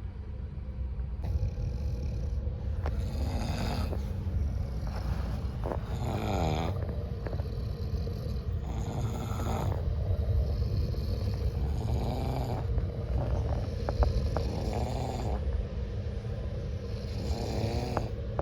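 People snoring loudly in a train coach, a rasping snore every three seconds or so, over the steady low rumble of the running train. One sharp knock sounds partway through.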